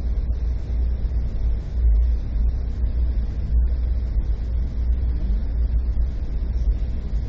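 Steady low rumble of a moving Amtrak passenger train, heard from inside the passenger car.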